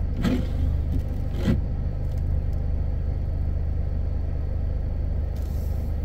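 Jeep engine idling, heard from inside the cabin as a steady low hum, with two brief sharp sounds about a second apart near the start.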